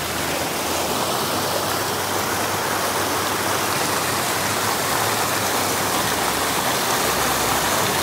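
Whitewater of a waterfall cascade rushing over rocks close by, a steady, even rush of water.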